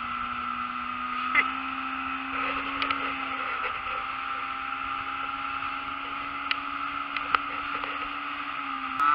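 Outboard motor running steadily at speed, towing, its hum holding an even pitch over the rush of water and wake spray.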